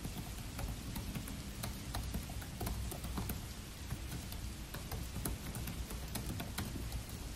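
Typing on a Dell laptop keyboard: quick, irregular key clicks over a steady hiss of rain.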